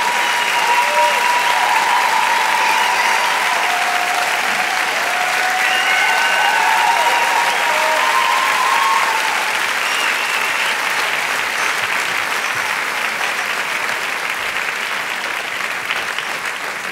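Theatre audience applauding after a live performance, with a few cheers over the clapping in the first half; the applause slowly dies down toward the end.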